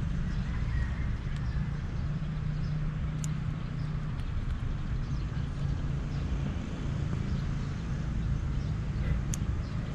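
Steady low rumble of distant traffic, with a few faint sharp clicks of scissors snipping leaves, about 3 s and 9 s in.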